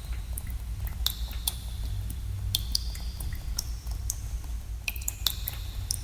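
Water drops falling in a cave: about ten irregular plinks, several ringing briefly on a high note, over a steady low rumble.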